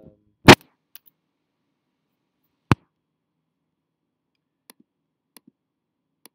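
Key presses on a laptop keyboard: one very loud sharp tap about half a second in, another sharp tap about two seconds later, then a few faint key clicks.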